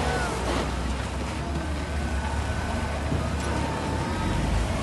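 Diesel engines of wheel loaders running at work, a steady low rumble, with faint scattered clatter and squeaks above it.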